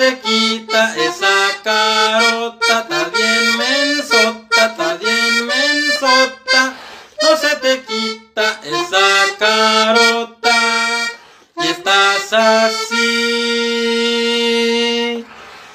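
Accordion music playing a song melody in short phrases, ending in one long held note about thirteen seconds in.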